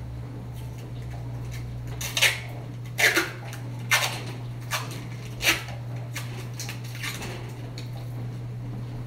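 A series of short, sharp crackles and clatters, about five in a few seconds, from handling a self-adhesive backsplash tile and stripping off its protective plastic film. A steady low hum runs underneath.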